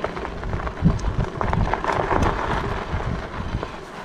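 Wind rumbling on the microphone, with the crackle and bumps of bicycle tyres rolling slowly over gravel and dry grass.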